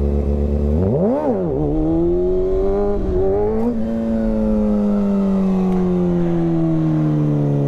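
Kawasaki ZX-6R's inline-four engine under way: a quick blip of the throttle, revving up and straight back down, about a second in, then running steadily with its pitch slowly falling as the bike rolls along.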